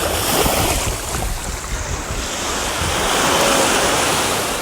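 Ocean surf washing ashore, swelling to a peak about three seconds in and then easing off, with wind rumbling on the microphone.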